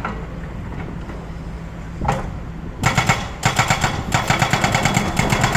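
Excavator hydraulic breaker hammering in a rapid rattle like automatic gunfire, about ten blows a second. It starts about three seconds in and has a short break just after it starts. Under it, the excavator's engine runs steadily, and it is heard alone before the hammering.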